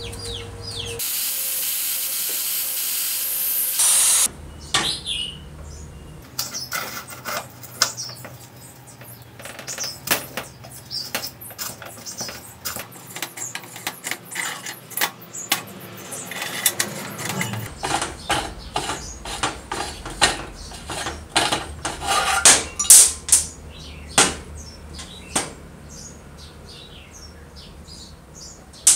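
A loud hiss for about three seconds, then a long run of irregular metallic clicks and taps as a hand tool works a brass fitting loose from the tank of an old Primus kerosene stove, with a faint low hum behind.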